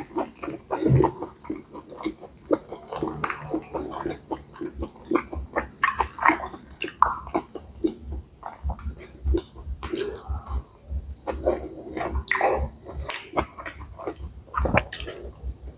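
Close-up chewing and wet mouth sounds of a person eating pad see ew, stir-fried wide rice noodles with pork: irregular smacks and clicks throughout.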